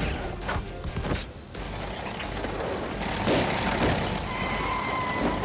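Cartoon action sound effects over background music: several sharp bangs and clatters in the first second and a half, busy noise through the middle, and a steady high tone near the end.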